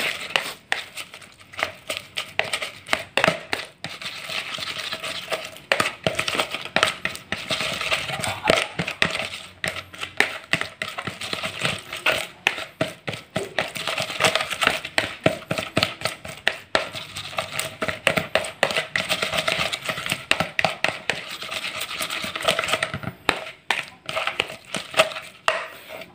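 A plastic rice paddle scraping and tapping against a plastic bowl in rapid, uneven strokes as boiled, peeled shrimp are mashed into a paste. The strokes stop right at the end.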